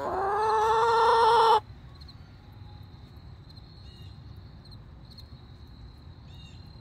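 A chicken giving one long, loud call that stops abruptly about one and a half seconds in.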